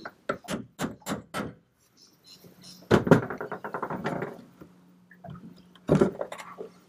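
Hammer tapping at the steel helm shaft and mount of a boat's steering, about six quick blows in the first second and a half. A rapid rattle of strikes comes about three seconds in, and another clatter near the end.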